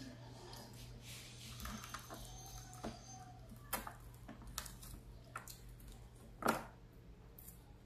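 Crispy fried fish being torn apart by hand: scattered small crackles and crunches, the loudest about six and a half seconds in, over a low steady hum.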